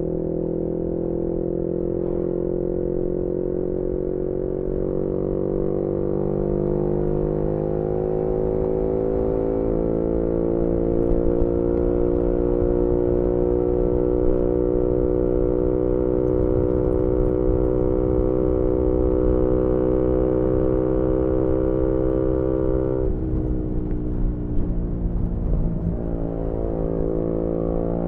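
2018 Yamaha MT-125's single-cylinder engine through a GPR aftermarket exhaust, heard onboard while riding. The engine note climbs slowly and holds steady, drops about two-thirds of the way in as the throttle eases, then rises again near the end, over a low rumble of wind and road.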